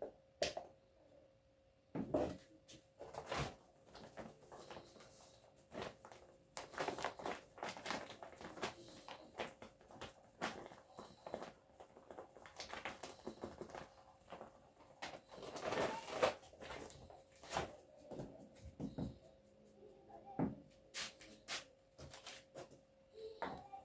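Scattered knocks, clicks and clatter of objects being handled and set down in a small room, some louder than others, over a faint steady hum.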